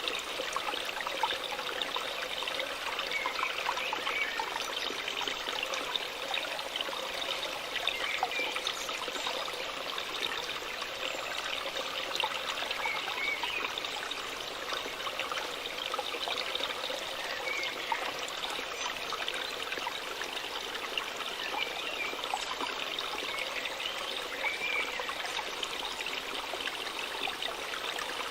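Waterfall water running and splashing steadily, an even unbroken rush.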